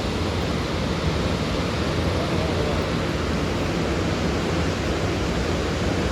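Steady rushing roar of the Niagara River's whitewater rapids below the Whirlpool Aero Car, an even noise that holds at one level.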